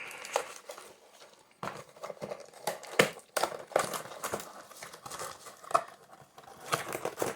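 Packaging being opened and handled as a small solar panel is pulled out of its box: rustling and crinkling with scattered knocks and clicks, the sharpest knock about three seconds in.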